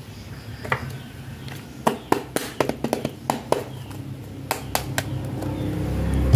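Hard plastic packaging of a toy makeup palette handled in the hands, giving a run of sharp clicks and taps, thickest in the middle. A low rumble builds in the background near the end.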